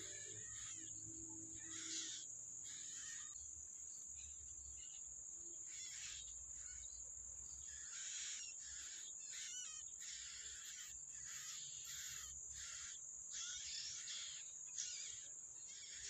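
Yellow-bellied prinia nestlings begging at the nest with short raspy calls, repeated about once a second. A steady high-pitched whine runs underneath.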